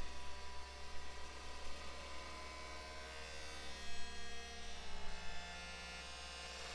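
Ambient electronic drone from live synthesizers: a deep steady low hum under several held higher tones, swelling unevenly at first and settling to an even level after about five seconds.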